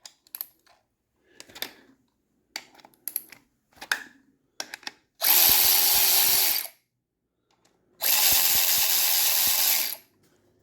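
A few light clicks and knocks of parts being handled, then a power tool run in two bursts, each about a second and a half long, with a short pause between them.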